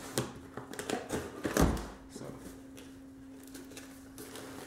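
A cardboard shipping box handled and opened by hand: tapping and scraping of the box and its flaps, with one heavier thump about a second and a half in. After that, only a faint steady hum.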